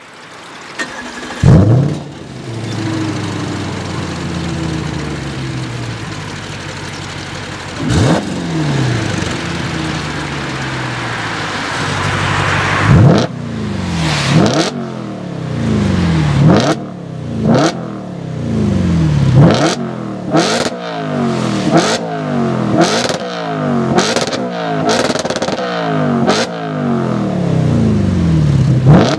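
Audi RS4 B8's 4.2-litre V8 through a custom straight-pipe exhaust, free-revving at a standstill. It starts with a loud flare about a second and a half in and settles to an idle. It gives one rev near eight seconds, then from about thirteen seconds a series of sharp throttle blips, each climbing and falling back, coming about once a second.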